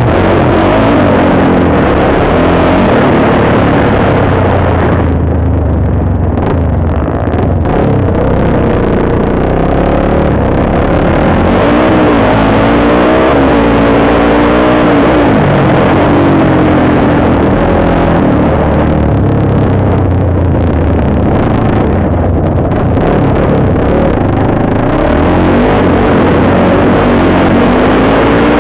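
Sport quad (ATV) engine running under way, its pitch rising and falling several times as the throttle is opened and eased, over a constant loud rush of noise on the onboard microphone.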